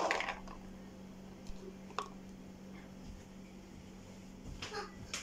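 Canned red kidney beans tipped from a bowl onto chickpeas in a plastic mixing bowl, a short wet rustle at the start. A few faint knocks follow later, over a steady low hum.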